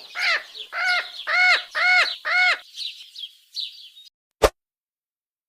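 Bird calls: about five loud arched calls half a second apart, then a run of quicker, fainter high chirps. A single sharp click comes near the end, followed by silence.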